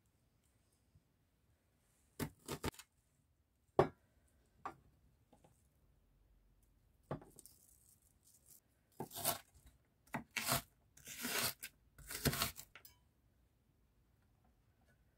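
Raw onion being cut with a knife on a wooden cutting board and its layers pulled apart by hand. Irregular crisp cuts and crackly tearing sounds come singly and in quick clusters, with short pauses between them.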